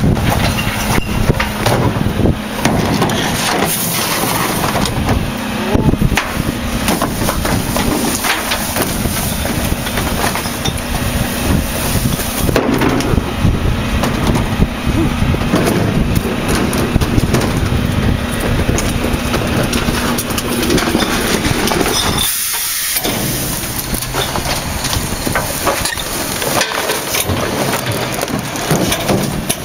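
Rear-loading garbage truck at work: engine and hydraulic packer running while household trash bags are crunched and compacted in the hopper, with knocks from carts being tipped in. A steady low hum under the noise breaks off about 22 seconds in.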